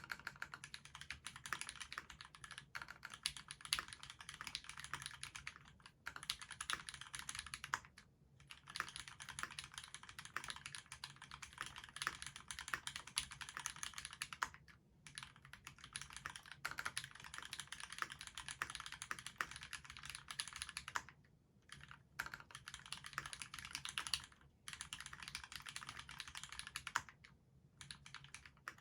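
Steady, fast typing on a Duck Octagon v3 mechanical keyboard with a stainless steel plate, Krytox-lubed Cherry retooled Black linear switches and GMK doubleshot ABS keycaps. The keystrokes run together in long bursts, broken by brief pauses every few seconds.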